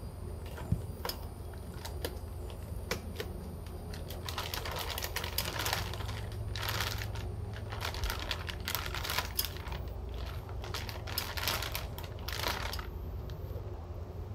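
A plastic bag and plastic jug being handled by hand: scattered sharp clicks, then irregular crinkling rustles in the middle of the stretch that stop about a second before the end.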